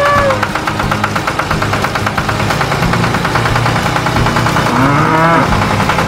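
Background music with a steady beat, with cow moos laid over it: a short one at the start and another about five seconds in.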